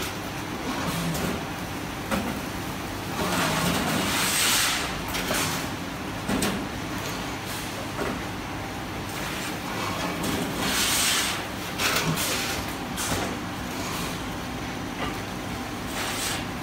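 Steady hum of a shrink-film packing line and tile conveyor running, broken by scattered knocks and clatters of cement roof tiles being handled. Twice a louder hissing rustle lasts about a second.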